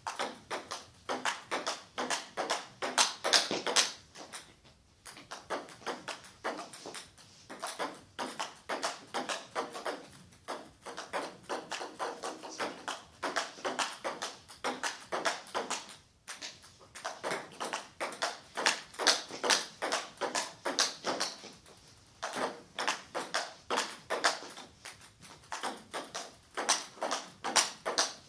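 Table tennis ball clicking rapidly back and forth off the bats and table in fast rallies, several hits a second, in runs of a few seconds broken by short pauses between points.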